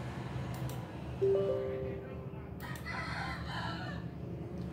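A faint, drawn-out animal call in the background, starting about a second in and lasting some three seconds: held on a steady pitch at first, then wavering.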